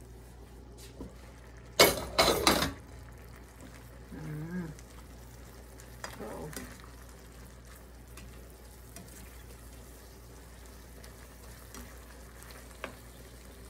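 Glass wok lid lifted off with a loud clatter about two seconds in, then a spatula stirring stir-fried cabbage, mushrooms and shrimp in the wok, with light sizzling and faint scraping ticks.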